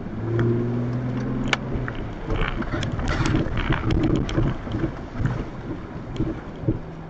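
4x4 truck driving on a rough trail: a steady engine hum for the first couple of seconds, then an uneven rumble with many small knocks and rattles as it bumps over the ground.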